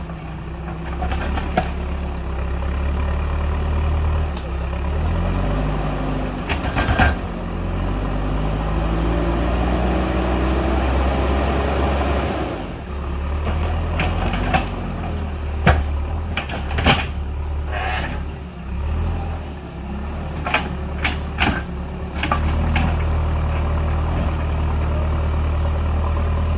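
JCB backhoe loader's diesel engine running under load, its pitch rising and falling as it revs with each move of the arm, with repeated sharp knocks and clunks.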